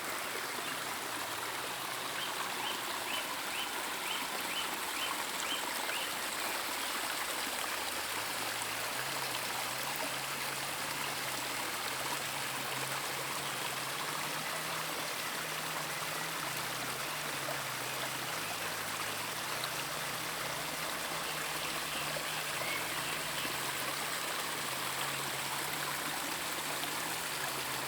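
Water from a small garden cascade running steadily over rocks. A short run of faint high chirps, about two a second, comes a few seconds in.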